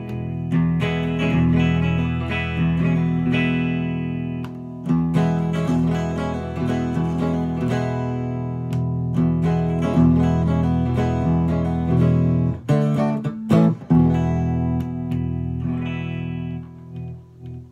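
1962 Framus New Sound semi-hollow electric guitar played through an amplifier: an improvised blues-jazz line of picked single notes and chords. A few short, sharp chord stabs come about three-quarters of the way through, and the last notes die away near the end.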